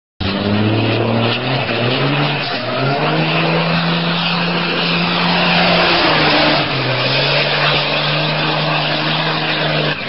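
Semi-truck's diesel engine held at high revs, its pitch shifting up and down a few times, over the steady hiss of the rear tires spinning in a smoky burnout.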